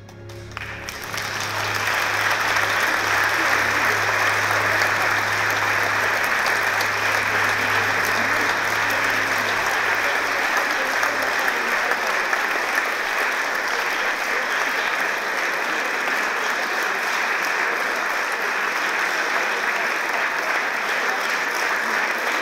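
Theatre audience applauding, swelling within the first two seconds as the music ends, then steady and sustained, with a low lingering tone from the music fading out under it by about halfway.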